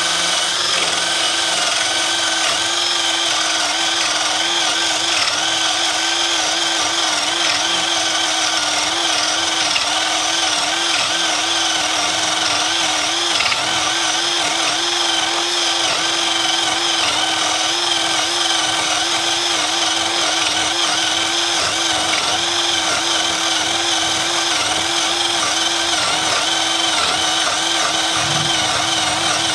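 INGCO CIDLI20025 20 V cordless drill in drill mode, running steadily under load as a 35 mm Forstner bit bores through two-inch timber. The motor holds a steady whine with a slight wobble in pitch and does not stall at speed 2.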